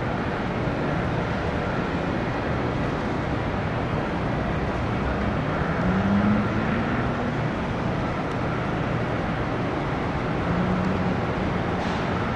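Jet airliner engine noise: a steady rushing sound with a low hum that rises slightly in pitch around the middle.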